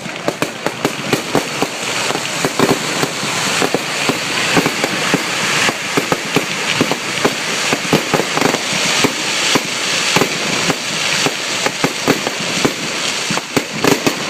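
Fireworks display: a rapid, continuous barrage of bangs and pops over a steady crackle, with no let-up.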